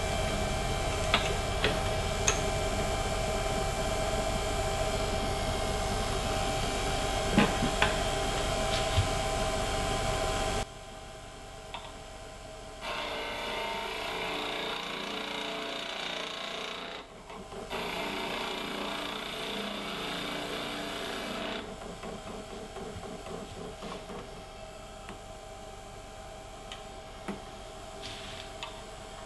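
Wood lathe running with a steady motor whine and a few sharp clicks. After an abrupt cut about a third of the way in, a wide chisel shaves the spinning olive wood blank: a quieter, uneven scraping hiss that rises and falls in level.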